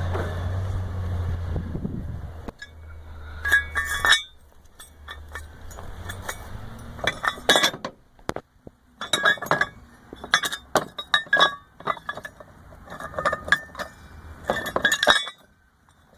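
An engine runs with a low steady hum that dies away within the first few seconds. Then come irregular clusters of sharp metallic clinking and rattling, as of loose metal parts knocking together.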